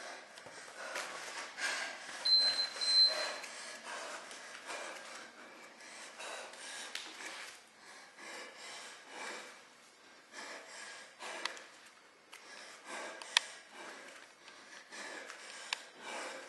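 A woman's heavy, rhythmic breathing through mouth and nose, a sharp exhale every half second to a second, as she works through abdominal crunches. A brief high electronic beep sounds about two seconds in.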